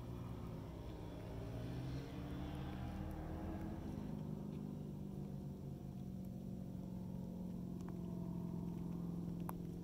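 Yamaha Raptor 700's single-cylinder four-stroke engine, breathing through an Alba Racing aftermarket exhaust, idling steadily after wavering slightly in the first few seconds. A short click comes near the end.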